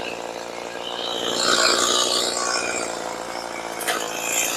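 Two-stroke chainsaw running steadily, getting louder about a second in as it cuts into wood, with a short crack near the end.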